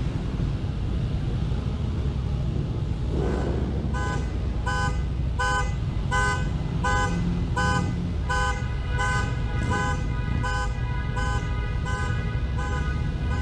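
Car alarm going off: a horn-like tone that starts about four seconds in and pulses evenly, roughly three beeps every two seconds, over the steady low rumble of idling motorcycle engines.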